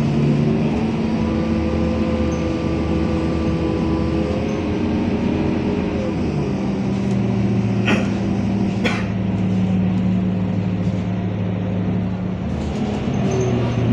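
Scania K230UB bus running on the road, heard from inside the passenger saloon: a steady diesel engine and driveline drone whose pitch steps down partway through. Two sharp knocks come about a second apart, a little past the middle.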